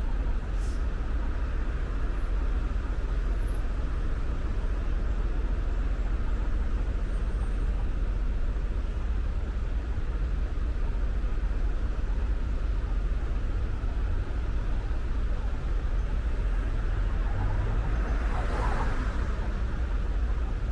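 Steady road noise from a car being driven: a constant low tyre-and-engine rumble with an even hiss over it. Near the end there is a brief louder rush.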